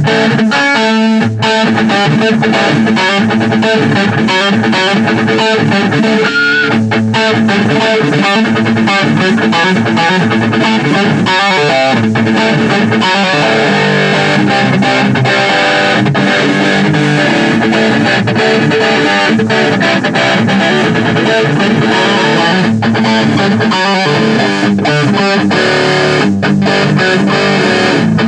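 Electric guitar played through a Mesa/Boogie Throttle Box distortion pedal, giving a continuous, distorted sound check of the pedal's tone.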